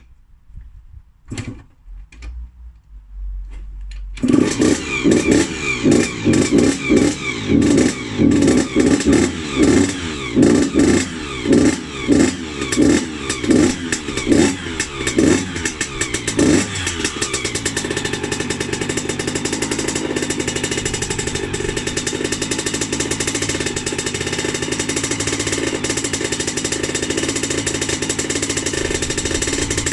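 Yamaha YZ80 two-stroke single-cylinder engine, freshly rebuilt, catching about four seconds in after a few knocks of being kicked over. The throttle is blipped in quick repeated revs for about twelve seconds, then the engine settles into steady running.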